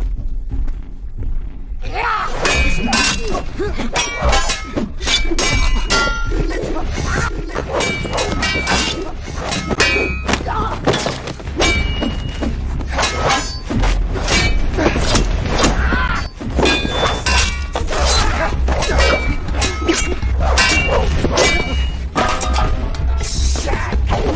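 Machete blades clashing again and again in a fight: a rapid run of sharp metallic clangs, each ringing briefly.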